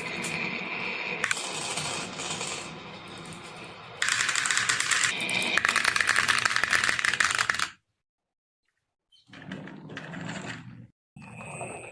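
Marbles rolling and clattering down a marble run: dense rapid clicking and rattling that cuts off suddenly about three quarters of the way in, followed by two shorter bursts of clatter near the end.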